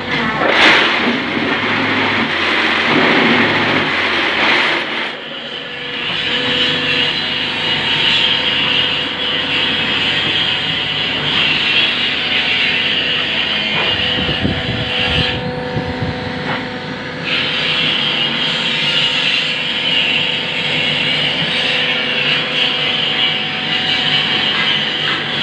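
Hydraulic paving-block press machine running: a steady motor-and-pump hum with a hiss on top. The hiss drops out briefly twice, about five seconds in and again about two-thirds through.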